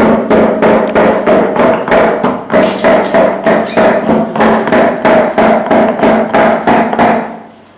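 Stone pestle pounding black peppercorns in a granite mortar: repeated dull knocks, about three strikes a second, over a steady low tone, stopping about seven seconds in.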